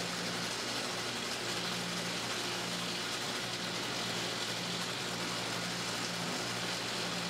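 The homemade belt grinder running on its two small 12-volt DC motors, with the abrasive belt tensioned: a steady hiss with a low motor hum under it. The motors are overloaded and overheating, to the point of smoking.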